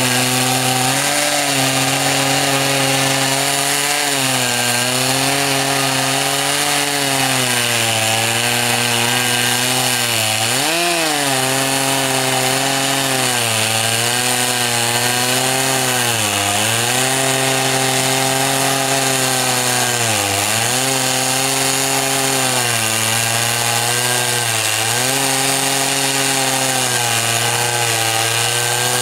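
Stihl chainsaw on a Logosol chainsaw mill running at full throttle, ripping lengthwise through a maple log. Its pitch sags briefly every few seconds as the chain bogs under the cut, then recovers.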